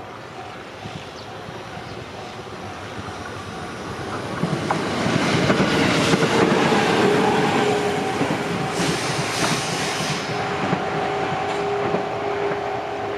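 An electric train on the Gotemba Line passing the level crossing. The running noise of its wheels on the rails swells about four seconds in and is loudest a few seconds later, with a few sharp clacks and a steady whine, then stays loud as the cars go by.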